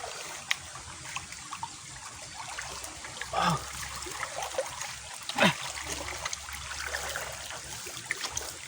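Shallow muddy water trickling and splashing, with many small wet clicks and slaps from hands groping in a water-filled hole.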